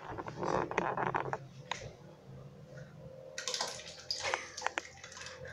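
Canned corn being tipped out of its tin into a pot of liquid, splashing and plopping in, with a few light clicks; the pouring is loudest in the second half.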